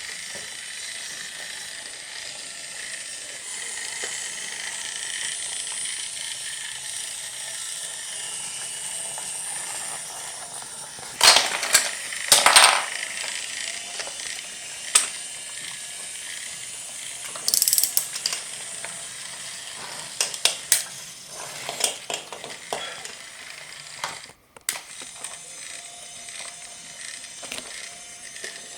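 Small geared motor of a battery-powered BRIO toy train whirring steadily, with loud clattering clicks about eleven seconds in and scattered clicks after.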